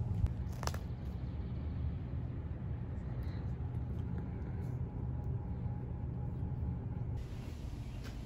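Outdoor ambience: a steady low rumble, with a brief click about a second in.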